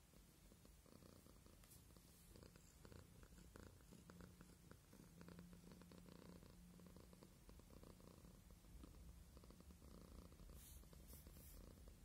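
Domestic cat purring softly and steadily.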